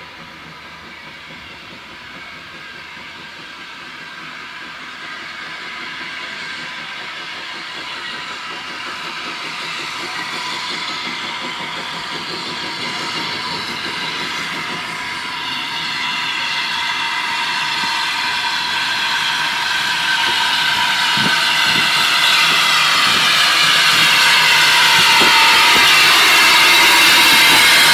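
Steam locomotive No. 1340 'Trojan', a small 0-4-0 saddle tank, approaching and rolling slowly past with steam hissing steadily off it, the sound growing louder throughout. A couple of short knocks from the wheels come in the last few seconds.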